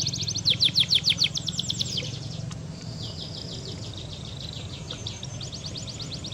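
Birds chirping in quick runs of high, downward-sweeping notes, about nine a second, three runs in a row, over a low steady hum.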